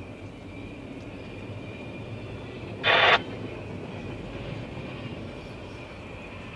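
Double-stack intermodal freight train's well cars rolling past, a steady muffled noise heard from inside a car with the windows rolled up. About three seconds in, a short loud burst of noise rises over it.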